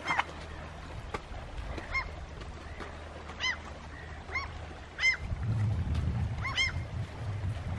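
Seabirds calling: short, arching cries repeated about once a second, some in quick pairs. A low rumble runs through the second half.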